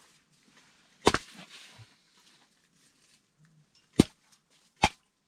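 A few sharp knocks: a quick double knock about a second in, then single knocks near four and five seconds.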